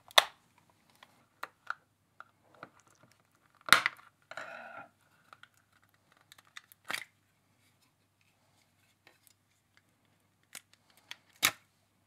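The glued plastic shell of a USB-C power adapter being pried and pulled apart: scattered clicks and scrapes, with sharp plastic cracks near the start, about four seconds in and near the end as the seam gives way.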